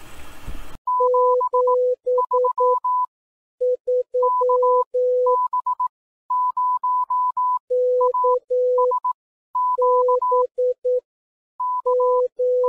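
Morse code sent as clean beeping tones, short and long beeps in groups, switching between a higher and a lower pitch, starting about a second in.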